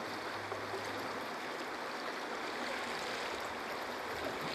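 Steady rushing hiss of flowing river water, even throughout with no distinct events.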